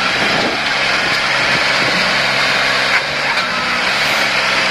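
John Deere tractor's diesel engine running steadily under heavy load as it hauls a loaded trailer through deep mud.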